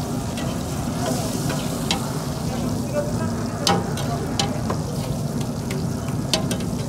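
Diced liver and a tomato mixture sizzling steadily on a large flat metal griddle, with several sharp scrapes and clacks of a metal spatula as food is scooped onto a plate.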